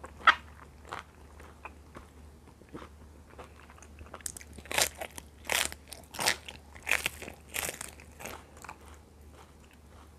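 A person eating close to the microphone: a sharp bite just after the start, then quiet chewing, and from about halfway a run of crunchy chews, about three every two seconds.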